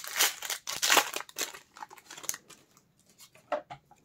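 Foil booster pack wrapper crinkling and tearing open, loudest in the first second and a half, then dying down to a few light rustles and clicks.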